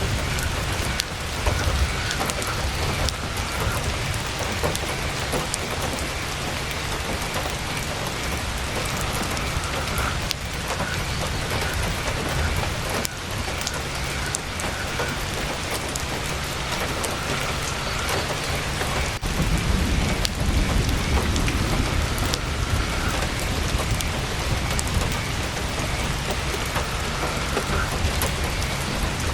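Heavy, steady rain drumming on tent fabric, with a low rumble underneath.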